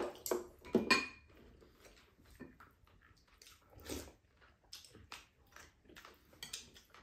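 Chopsticks and spoons clicking against ceramic bowls and a plate, with chewing, as two people eat. The clicks are short and scattered, the loudest right at the start and about a second in.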